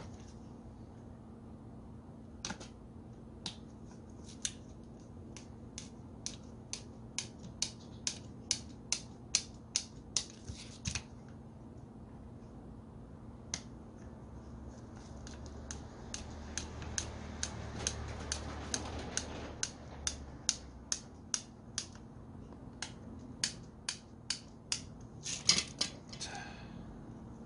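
Runs of sharp, evenly spaced clicks, about two or three a second, from a screwdriver being worked on the screws of a small angle grinder during reassembly.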